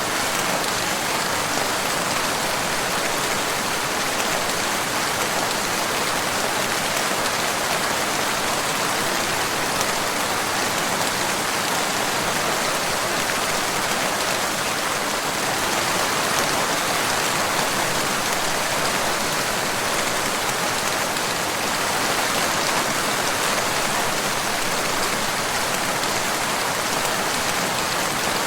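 Steady rain falling, an even hiss that neither swells nor fades.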